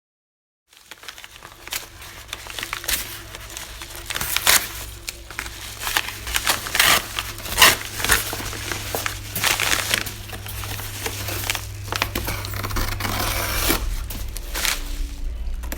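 Packaging crinkling and rustling in irregular bursts as a boxed mirror kit is handled and opened, over a steady low hum.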